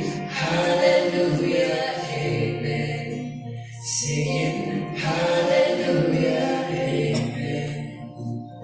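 Group of voices singing a worship song in long sustained phrases, with a short break about three and a half seconds in and another near the end.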